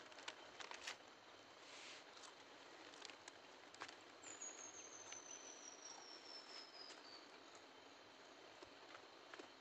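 Faint quiet outdoor ambience with scattered soft clicks. About four seconds in, a single thin high whistle glides slowly downward in pitch for about three seconds.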